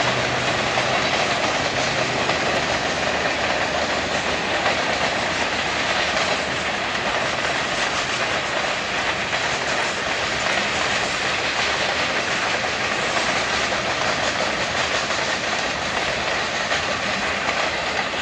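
Freight train cars rolling past at close range: a steady, continuous rumble and rattle of steel wheels on the rails.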